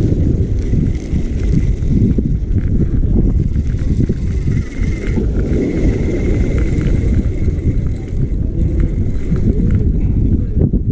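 Wind buffeting the microphone: a loud, continuous low rumble that rises and falls.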